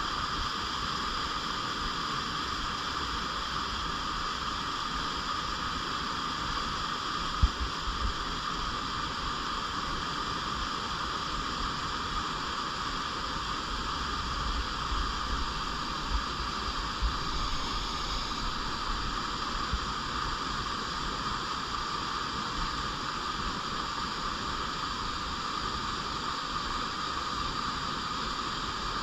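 Clear stream flowing over rocks: a steady rush of water. A sharp low thump comes about seven and a half seconds in, and a few smaller low bumps follow a little past the middle.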